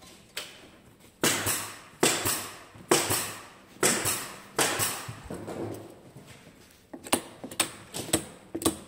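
Wooden beehive frames being knocked together during assembly: five sharp knocks in a steady rhythm, a little under one a second, each ringing out briefly in a small room, then lighter, quicker clicks and taps near the end.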